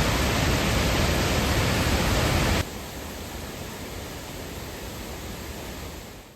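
Steady rush of a waterfall, a dense even noise. About two and a half seconds in it drops suddenly to a quieter rush of water.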